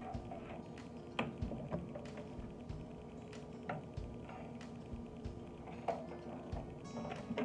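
Irregular clinks and knocks of a ladle against a steel pot and a wire-mesh strainer as boiled shrimp, mussels and squid are scooped out and dropped in, over the bubbling of the water at the boil.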